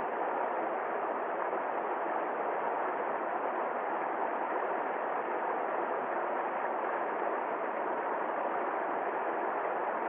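Small waterfall on a rocky stream, the water rushing steadily into a pool below.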